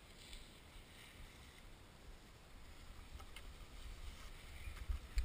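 Faint wind rumble and the hiss of skis sliding on packed snow, picked up by a skier-worn action camera while skiing downhill; it grows louder near the end.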